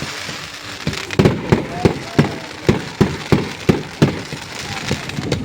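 Fireworks going off: a quieter lull in the first second, then a quick, irregular string of sharp bangs, about two to three a second, over a crackling haze.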